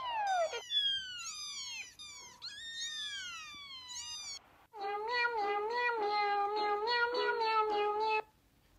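Kittens mewing: a string of high, overlapping mews sweeping up and down in pitch, then after a short break, a long wavering cry held for about three and a half seconds.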